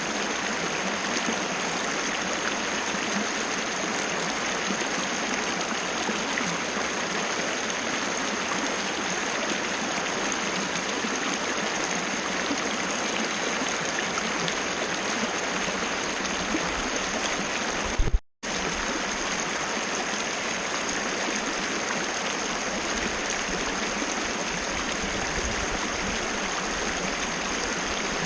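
Waterfall: a steady rush of falling, splashing water, with the sound cutting out briefly about two-thirds of the way in.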